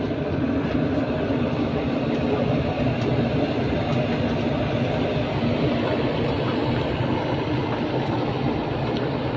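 Tourist road train running steadily, its engine drone and rolling noise heard from aboard one of its carriages.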